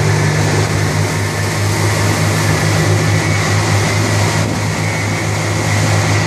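Water taxi's engine running with a steady low drone as the boat moves along, heard on board, with an even hiss over it.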